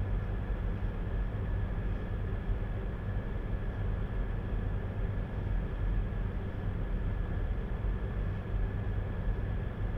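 Steady mechanical hum, heavy in the low end, with a faint high whine held on one note throughout.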